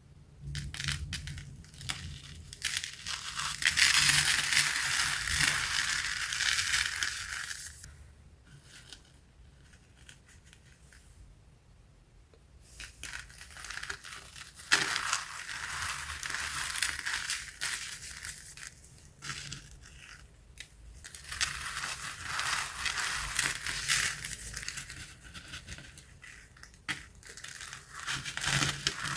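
Cornstarch "crunchies" (dried cornstarch chunks) being crushed. Crunching comes in three long spells with quieter stretches between.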